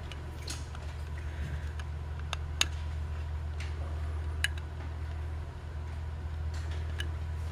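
A few sharp little metallic clicks as fingers work a stiff old wire retainer clip onto the float pin of a Motorcraft 2150 carburetor's brass float, over a steady low hum.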